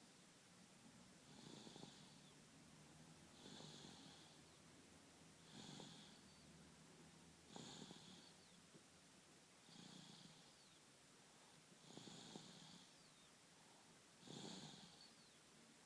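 Six-month-old baby snoring faintly in sleep: a light, regular snore with each breath, about every two seconds, seven in all.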